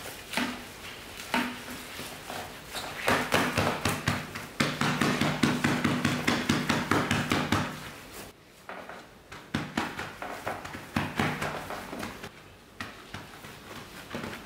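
Gloved hands patting and slapping mashed cooked soybeans into a meju block on a metal tray and scooping the mash in a steel bowl: a quick run of dull pats and taps, busiest in the middle, with a faint low hum underneath.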